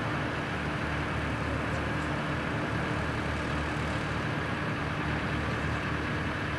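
Four-engined BAe 146-300 airliner's Lycoming ALF 502 turbofans on final approach, a steady rumble with a thin, steady whine over it, as the jet flares just above the runway before touchdown.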